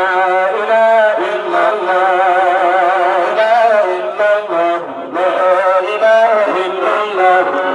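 Men singing an Islamic zikr (dhikr) chant into microphones, amplified. The voices hold long ornamented lines whose pitch wavers and glides, with no break.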